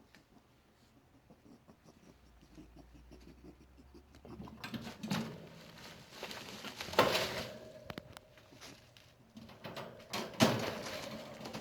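Pet rabbit making odd sounds: a few sudden noisy bursts, the two loudest each trailing off into a short steady tone. The owner fears the rabbit is sick; a vet could not find the cause.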